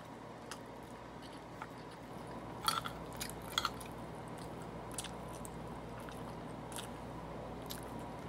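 A person chewing and smacking their lips close to the microphone while eating, with scattered short wet clicks of the mouth, thickest a few seconds in, over a faint steady hum.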